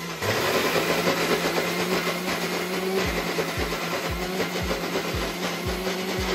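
Electric mixer grinder running hard, blending a thick mix of bananas, oats, peanuts and peanut butter in a little milk: a steady motor hum and whirr that gets louder just after the start. From about halfway, a low throb comes about twice a second.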